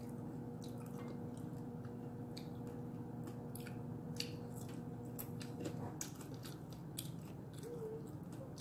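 Close mouth sounds of someone chewing roasted salmon with its crispy skin, the chewing broken by many short crackling clicks.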